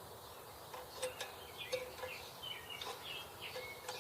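Small birds chirping, with a few irregular sharp clicks in the background.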